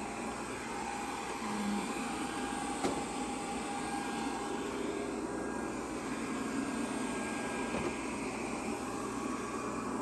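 GleeU GRS1 robot vacuum running steadily as it cleans a rug, its motor and brushes giving an even whir with a faint tone, and a single light click about three seconds in.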